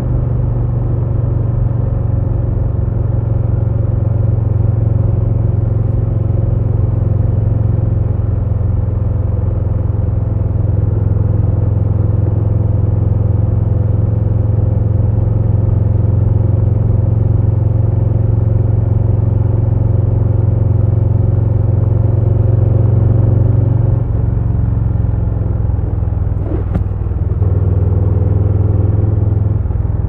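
2022 Harley-Davidson Low Rider S's Milwaukee-Eight 117 V-twin running steadily under way. Near the end the engine note drops, a single click follows, and the strong low note comes back a few seconds later.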